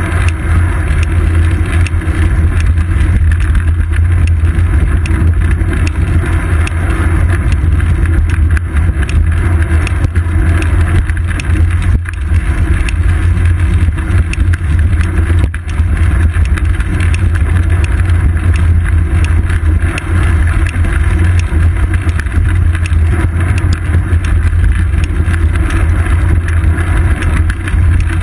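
Steady, loud, low rumble of wind and road vibration picked up by a seat-post-mounted GoPro Hero 2 on a moving road bicycle.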